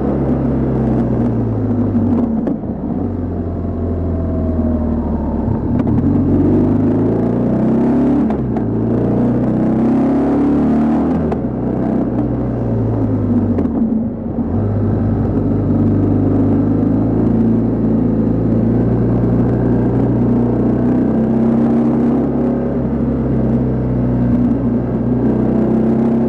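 BMW R1200GS flat-twin boxer engine running under way, its pitch rising and falling as the rider accelerates and backs off the throttle. The note drops sharply about two seconds in and again about fourteen seconds in, then holds steadier.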